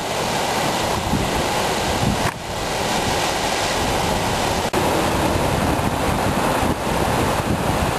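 Heavy sea surf breaking and churning around rocks, a loud, steady rush, with wind buffeting the microphone.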